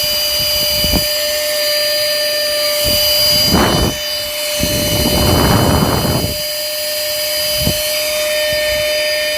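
Portable wet and dry car vacuum cleaner running, its motor giving a steady high whine. There are short knocks about a second in, near three seconds and near the end, and swells of rushing air a little past the middle.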